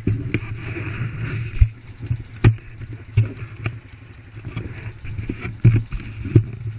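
ATV engine running steadily nearby, with a series of sharp knocks and rubbing from the camera being handled and moved against the rider's gear.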